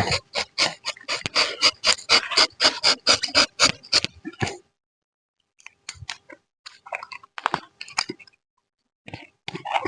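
Rapid scraping strokes from rubber-tapping work, about four or five a second for roughly four and a half seconds. After a short pause come a few scattered scrapes and clicks.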